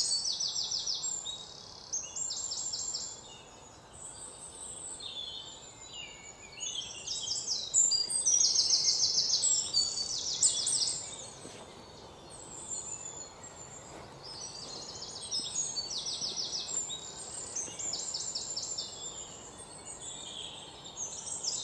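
Birds singing outdoors: many short, rapid high-pitched trills and chirps repeating one after another, loudest a little before the middle.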